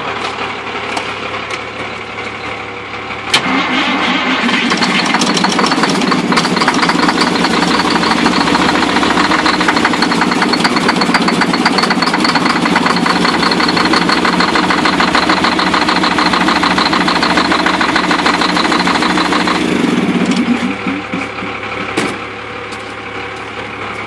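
A semi truck's diesel engine being cranked by its starter: a click about three seconds in, then a steady run of fast, even cranking pulses for about sixteen seconds that stops abruptly, with no sign of the engine catching.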